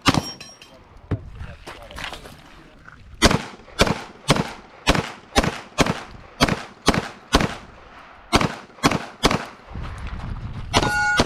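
A single shotgun blast right at the start. Then, from about three seconds in, a fast string of pistol shots, roughly two a second, runs for about six seconds. Steady ringing tones come in near the end.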